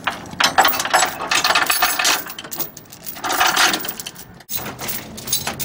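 Steel tow chain clinking and rattling link against link as it is handled and drawn over a semi truck's frame, with a brief pause about four and a half seconds in.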